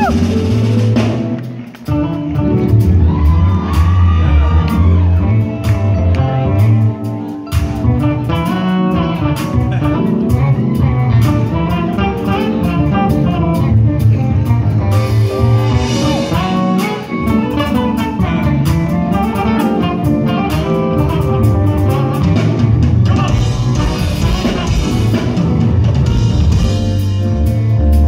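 Live band music with an electric bass line and a drum kit keeping a steady beat; the level dips briefly about two seconds in.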